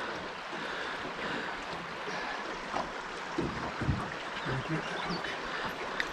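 Steady wash of river water around a drift boat, with a few faint low sounds near the middle.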